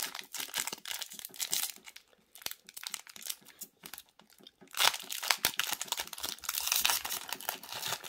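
Foil wrapper of a Pokémon TCG booster pack crinkling between the fingers, then torn open by hand, with louder ripping and crackling from about five seconds in.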